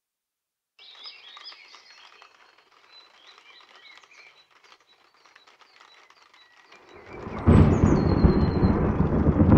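Small birds singing, then about seven seconds in thunder rolls in, swelling quickly into a loud, long, deep rumble that keeps going, with the birdsong still heard above it.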